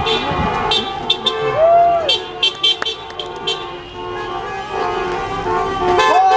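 Several vehicle horns honking at once, their long held tones overlapping.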